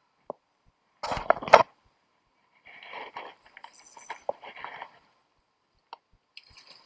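Hard clinks and knocks close to the microphone: a loud cluster about a second in, then a longer stretch of scraping and clicking, and a few small clicks near the end.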